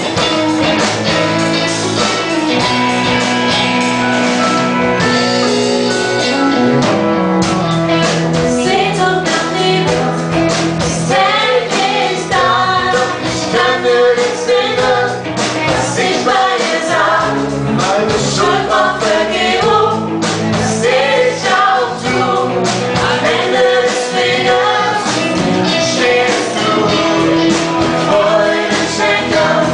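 Live worship band playing a German worship song on electric guitars, drums and keyboard, with a woman and a man singing. The opening seconds hold sustained chords, and the voices come in about seven seconds in.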